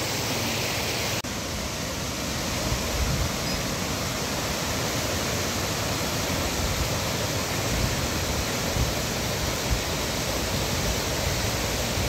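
Fast mountain river rushing over rocks, a steady roar of white water, with a short dip about a second in.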